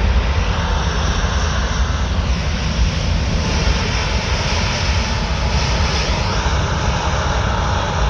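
Rolls-Royce Trent XWB turbofans of an Airbus A350 running: a steady jet rumble with a faint high whine that wavers in pitch.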